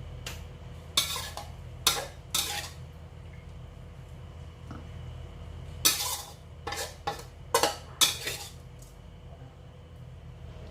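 Metal spatula scraping and clattering against a pan in short strokes while stirring food: three strokes in the first few seconds, then a quicker run of about five between six and eight seconds in, over a steady low hum.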